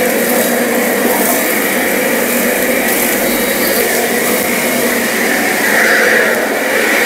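Narion 42V cordless leaf blower running steadily at full blast, blowing fallen leaves.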